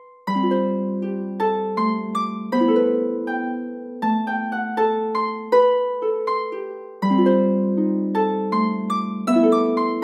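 Medieval harp playing an instrumental interlude: a steady run of plucked notes over low chords, each note ringing and fading.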